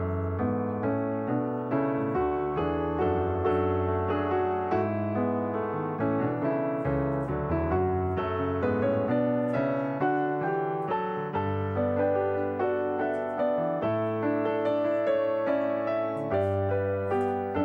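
Background piano music, a melody of notes played at an even, steady pace.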